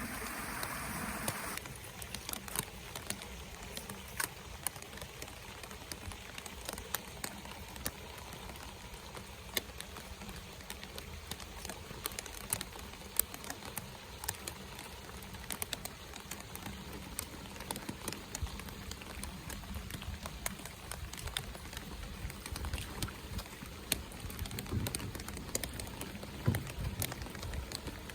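Steady rain, with many scattered sharp raindrop ticks. A louder hiss in the first second and a half cuts off abruptly.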